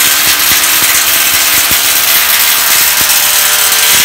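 Electric drill running steadily as it bores into the wall to fix the split air conditioner's indoor-unit mounting plate.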